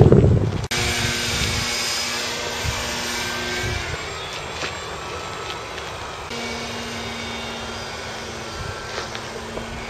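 Motor of a foam RC model airplane in flight, a steady pitched hum that drops away for a couple of seconds in the middle and comes back. A brief loud rumble comes first and cuts off under a second in.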